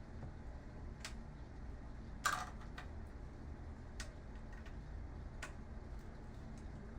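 Scattered light clicks and taps of a screwdriver and loose parts while the last screws are worked out of a computer monitor's internal panel, with one louder short clatter a little over two seconds in.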